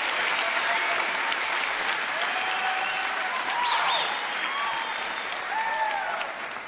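Audience applauding and cheering, fading out near the end.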